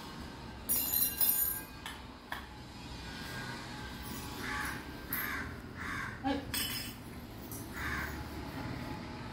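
A crow cawing four times, each caw short and separate, over a steady low background hum. Bright clinking sounds come about a second in and again about seven seconds in.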